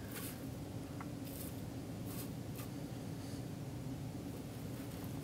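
Feeding tongs scraping and poking through dry coconut-fibre substrate: a few brief, light scratches and ticks over a low steady hum.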